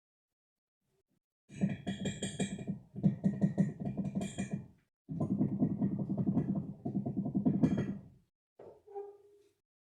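Worn front sway bar end links on a Renault Clio knocking and rattling in rapid runs as the suspension is worked, heard from inside the cabin. Two runs of about three seconds each come a little after the start, then a short burst near the end. Loud cracks like this are the sign of worn, loose end links.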